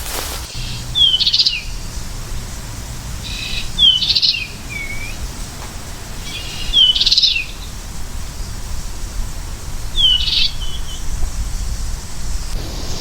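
American goldfinch calling, a short phrase repeated four times about every three seconds, each a quick downward-curving whistle followed by a brief burst of high notes, over a steady low background rumble.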